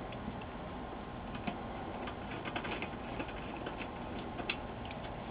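Faint, scattered light clicks and ticks as screws are put back into the metal RF shield of an LCD monitor, over a steady background hiss.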